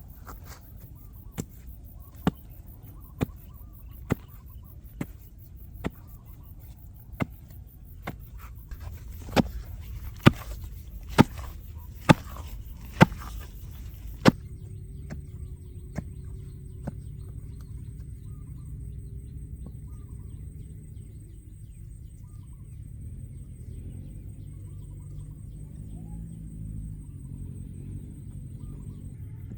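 Regular sharp chopping strikes, about one a second, getting louder towards the end of the run and stopping about fourteen seconds in. After that comes a low steady rumble with a few faint chirps.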